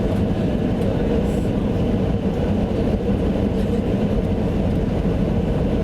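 Steady low rumble of a passenger plane heard from inside the cabin: engine and airflow noise, even throughout.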